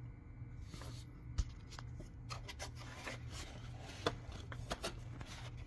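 Plastic connector sleeve being pushed by hand into a BMW X5 E70's automatic transmission housing: scattered small clicks and rubbing of plastic against the case, over a steady low hum.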